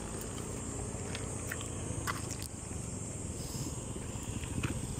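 Insects buzzing in a steady high drone, with a few sharp clicks scattered through and a low rumble underneath.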